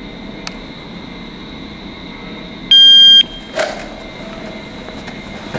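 A shot timer's start beep: one loud, steady, high beep lasting about half a second, a little over halfway through, followed a moment later by a short knock.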